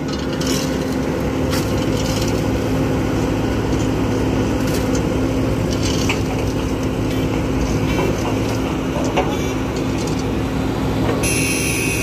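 Heavy diesel engines of an asphalt paver and a dump truck running steadily, with scattered knocks and clanks. A high-pitched hiss joins near the end.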